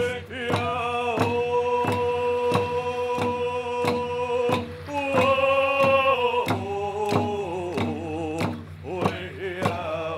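A First Nations song: singing that holds two long notes and then moves more freely near the end, over a steady hand-drum beat of about three strokes every two seconds.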